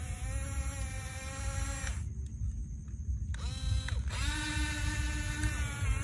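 Electric drive motors and gearboxes of a Huina 1569 RC bulldozer whining as it pushes sand, the pitch rising and falling with the throttle; the whine cuts out about two seconds in and starts again over a second later with a rising glide. A low rumble runs underneath.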